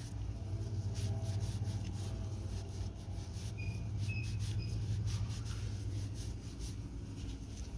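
Irregular rubbing and scraping strokes, typical of scrubbing a metal motorcycle exhaust pipe clean by hand, over a steady low hum. There are a few brief high squeaks about halfway through.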